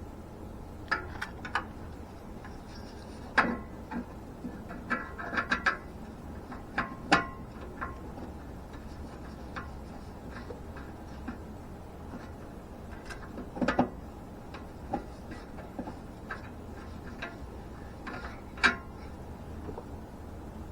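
Scattered clicks, taps and light knocks of hand work on parts under a car, the loudest about three and a half, seven, fourteen and nineteen seconds in, over a steady low hum.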